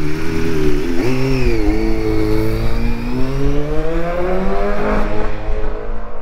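Yamaha YZF-R6 Supersport race bike's inline-four engine pulling away down the pit lane. Its revs dip and pick up about a second in, then climb steadily before levelling off.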